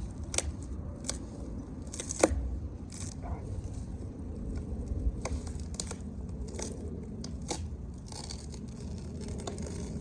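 Handling noise: scattered sharp clicks and short tearing, crinkling sounds, as a roll of tape is worked at, over a low rumble of wind on the microphone.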